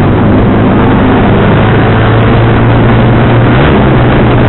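Motorcycle engine running at a steady cruise, a low even drone, with wind rushing over the microphone.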